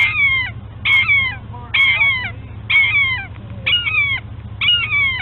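A young animal giving a repeated high, falling call, six times at about one call a second, each cry sliding down in pitch.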